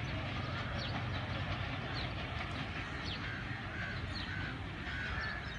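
Low, steady rumble of a distant train, with birds chirping over it in many short high calls.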